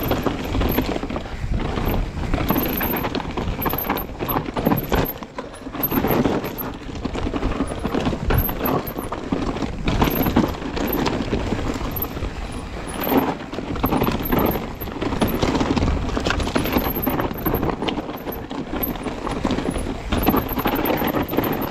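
Privateer 161 mountain bike rolling fast down a rooty dirt singletrack: tyres on dirt with a constant rattle of the bike and a busy run of knocks as the wheels go over roots and bumps.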